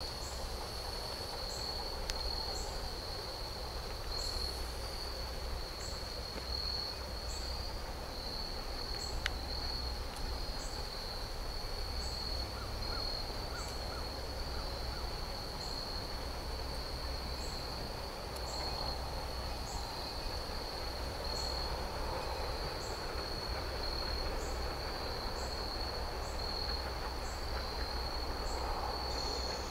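Insects trilling in a steady, high-pitched drone, with short higher chirps about every second or two, over a faint low rumble.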